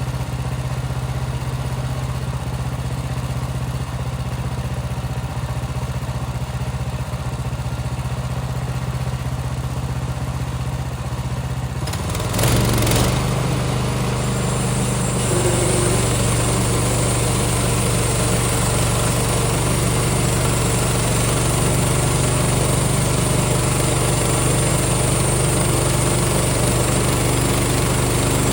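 Small gas engine of a portable bandsaw sawmill running steadily; about twelve seconds in there is a brief clatter, then it runs louder with a high steady whine added, as the mill speeds up.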